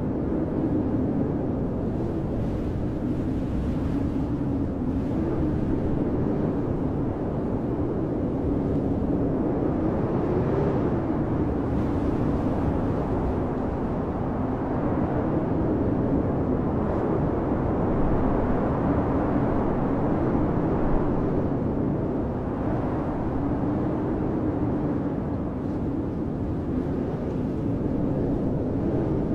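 Blizzard wind blowing steadily, with a low howl that wavers in pitch and swells and eases in gusts.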